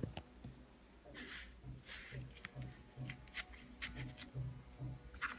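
Cardstock and paper being handled: a photo card sliding out of a paper pocket, with two short rustles in the first two seconds, then a few light clicks and taps of card against card.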